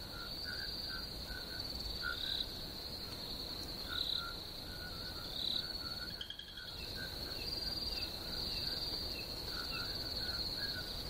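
Crickets chirping in a steady high trill, with shorter, lower chirps coming and going.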